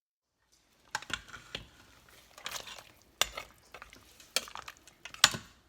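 Metal clinks and scrapes of a utensil against a pressure cooker pot, with sharp knocks about once a second and scraping between them, the loudest knock near the end.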